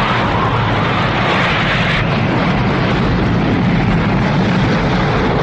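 A loud, steady, dense roar with no distinct strikes: a sound-effect rumble for a cataclysm laid under storm-cloud pictures.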